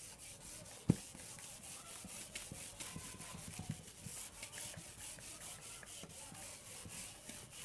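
Faint scratching strokes of someone writing by hand, with one sharp tap about a second in.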